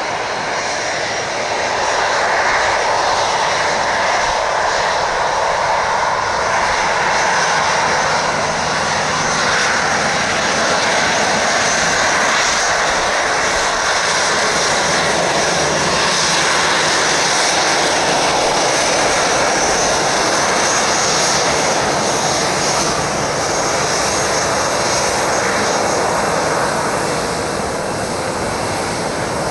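Boeing 737-800's CFM56-7B jet engines running at taxi power as the airliner rolls past, a steady rushing whine that grows louder about two seconds in and eases slightly near the end.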